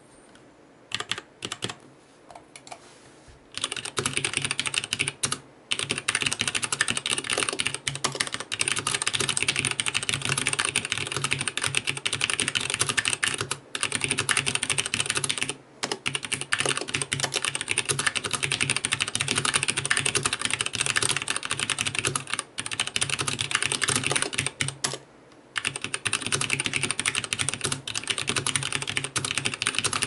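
Typing on a Vortex Pok3r 60% mechanical keyboard with Cherry MX Black linear switches. A few separate keystrokes come first, then from about three and a half seconds in a fast, continuous run of keystrokes, broken by a few short pauses.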